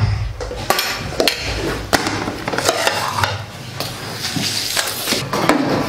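Plates and cutlery clattering and scraping as dishes are handled, with many short knocks.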